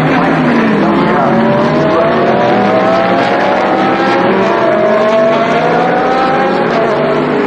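Several GT race car engines accelerating together, their overlapping notes rising in pitch for several seconds.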